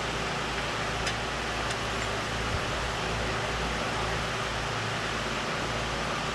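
Steady, even hiss with a low hum, fan-like, and two light clicks a second or two in.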